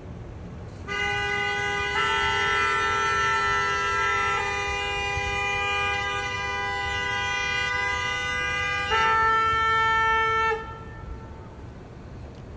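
Several car horns blaring at once in one long, continuous honk, with horns of different pitch joining and dropping out, the loudest one coming in near the end before they all stop suddenly. Drivers are leaning on their horns because traffic is blocked by a double-parked car. Beneath it runs a low rumble of idling traffic.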